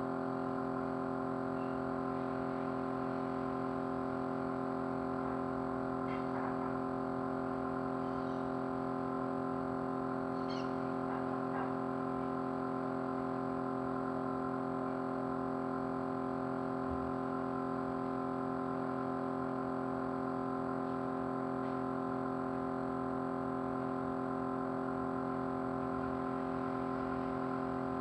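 Small motor running steadily with a vibrating hum at an even, unchanging speed.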